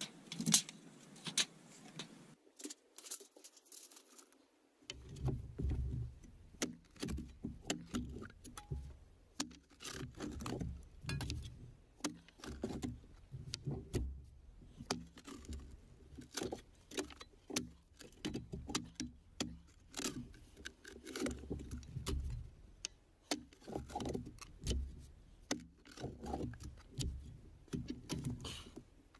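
Carpentry work: a fast, irregular run of knocks, clicks and light metallic clinks, with heavier thumps from about five seconds in.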